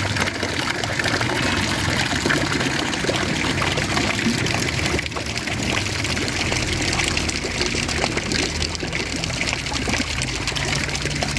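Steady rush of running water, pouring and trickling without a break.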